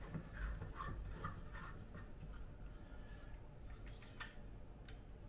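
Faint scraping and rubbing of a metal carbide lamp being handled and taken apart, with two light clicks near the end.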